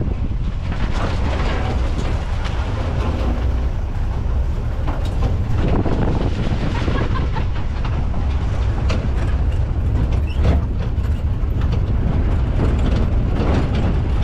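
Off-road jeep driving over a rough, bumpy dirt track: a steady low rumble with the body rattling and knocking irregularly over the bumps.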